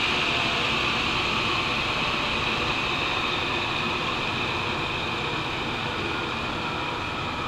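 An 80-year-old tool and cutter grinder running, a steady hissing whir that grows slowly quieter over the seconds.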